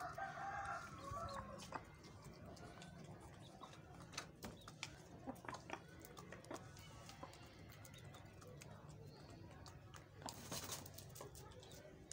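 Chickens clucking in the first second or so, then scattered sharp taps of their beaks pecking at bread crumbs on a concrete floor, with a short rustling burst about ten seconds in.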